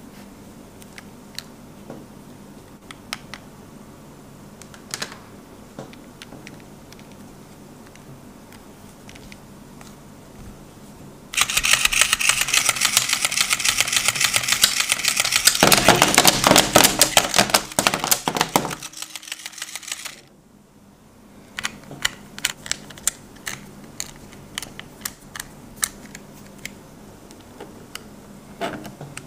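The motor unit of an electronic flopping toy fish runs for about nine seconds with a loud, fast mechanical clatter of its gearbox and swinging tail arm, heavier and deeper in the middle, then stops abruptly. Before it, light handling clicks on the plastic case; after it, small ticks of a screwdriver working at the case's screws.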